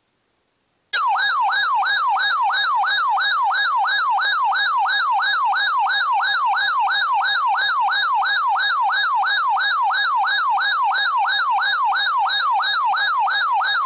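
Electronic yelp-style siren alert tone, a loud pitch sweep repeating quickly about two and a half times a second, starting about a second in.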